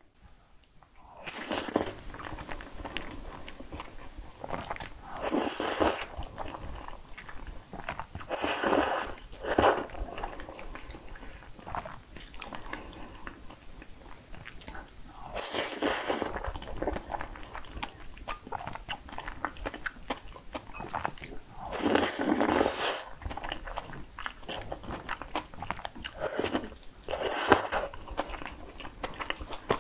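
Close-miked eating of jajangmyeon (black bean noodles): several loud slurps of noodles, each about a second long, with wet chewing in between.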